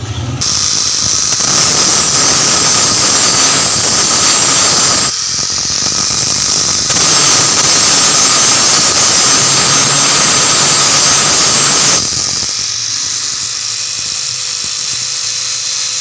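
Angle grinder with an abrasive disc grinding the sheet-metal body of a fridge: a loud, harsh grinding noise over the motor's steady whine. It eases off briefly about five seconds in. About twelve seconds in it drops to a lighter, quieter run as the disc's pressure on the metal lets up.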